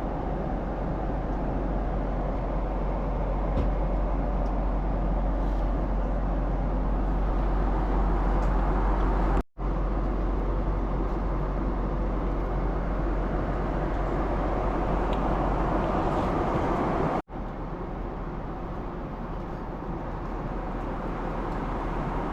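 Steady airliner cabin noise in flight, an even rush with a strong low rumble. It breaks off for an instant twice, about a third of the way in and again past halfway.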